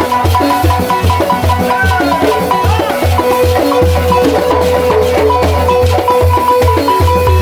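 Senufo balafon music, kapala style: wooden-keyed balafons playing a fast repeating pattern over a steady deep beat, with a steady high tone held underneath.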